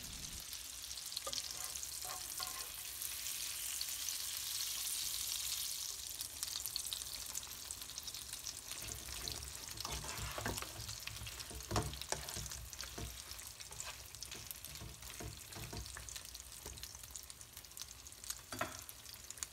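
Sweet pumpkin chunks and prawns sizzling in oil and sauce in a non-stick frying pan: a steady hiss, strongest in the first few seconds, with a few sharp knocks of stirring against the pan.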